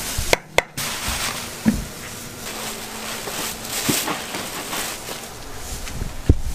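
Steady background noise with a few short sharp knocks scattered through it, the loudest near the end.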